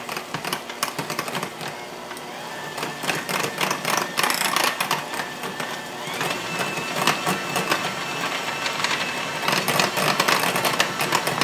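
Electric KitchenAid hand mixer running, its beaters clattering against a glass bowl as they mash baked potato and butter. A thin, steady motor whine stands out from about six seconds in until near the end.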